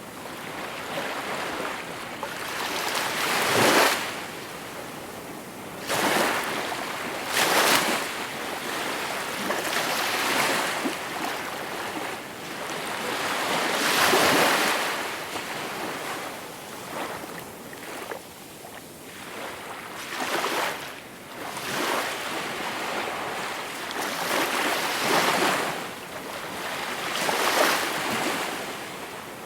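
Gentle sea waves breaking and washing on the shore, the surf swelling and falling back every two to three seconds.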